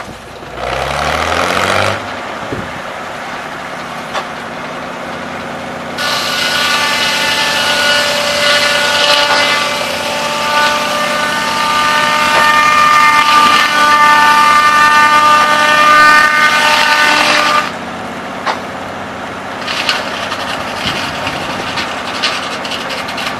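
Large circular sawmill blade cutting through a log for about twelve seconds: a loud ringing whine of several steady tones over a rasping cut. Under it the mill's power unit hums steadily throughout, and a brief rasp comes about a second in.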